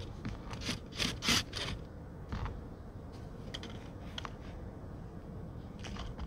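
Hands handling snacks and fruit on a table: a cluster of soft scrapes and taps about a second in, another a second later, then a few lighter ticks, over a faint low hum.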